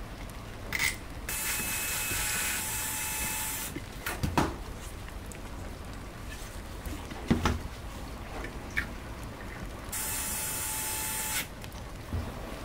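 Small electric screwdriver whirring in two runs, one of about two seconds and one of about a second and a half, driving small screws into aluminum plates. A few sharp knocks of metal parts come in between.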